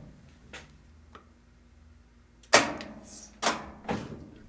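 A couple of faint clicks, then three sharp knocks in the second half, the first the loudest.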